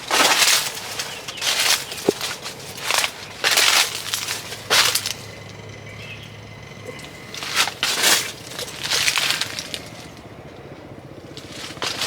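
Footsteps crunching through dry ground litter: a run of crisp steps that stops twice, briefly, about halfway through and again near the end.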